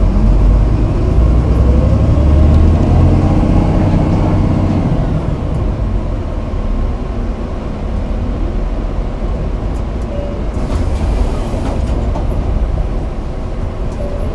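Toei city bus heard from inside the cabin, its engine note rising steadily over the first few seconds as the bus accelerates, then easing back under a steady road rumble. A brief hiss comes about ten seconds in.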